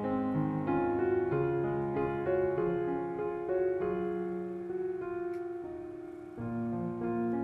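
Background piano music: a slow melody over held chords. It thins out, then a new chord comes in about six and a half seconds in.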